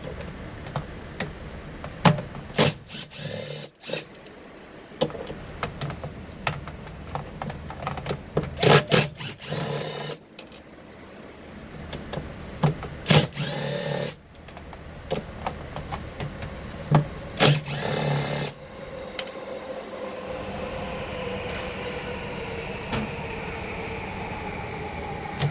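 Electric power screwdriver whirring in several short bursts of about a second each, the kind of sound made when driving screws out of a washing machine's panels, with small clicks and knocks of parts in between. Near the end a steady hum sets in, its tone slowly falling.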